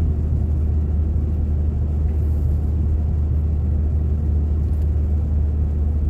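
Steady low rumble of a car driving at road speed, heard from inside the cabin.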